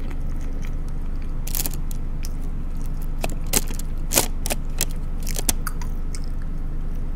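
A person chewing forkfuls of sauce-covered fries, with short sharp mouth clicks scattered through, over a steady low hum.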